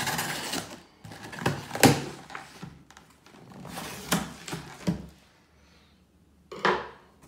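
A knife slitting packing tape on a cardboard shipping box, then the box's cardboard flaps being pulled open and folded back, with rustling, scraping and a few sharp knocks. It goes quiet for about a second, then ends with a short, loud scrape of cardboard.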